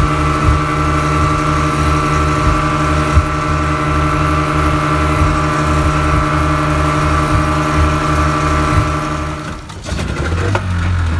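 A speedboat's twin outboard motors running flat out, a loud, steady engine drone over the rush of the wake. Near the end it cuts off abruptly to outboards idling with a lower, quieter throb.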